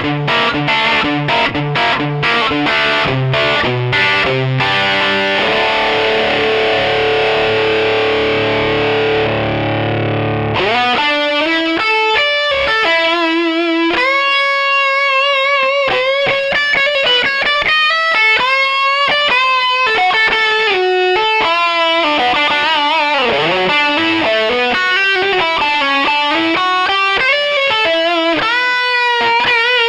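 Electric guitar played through the Takky Drive2 Extreme drive pedal, with a distorted tone. For about the first ten seconds it plays short, repeated chords, then holds a chord. After that it plays a single-note lead melody with string bends and wide vibrato.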